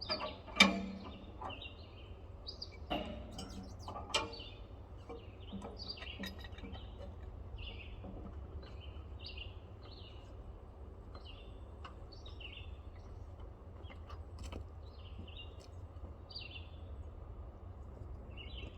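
Small birds chirping over and over. A few sharp knocks come in the first four seconds, the loudest about half a second in, likely tools on the excavator's hose fitting.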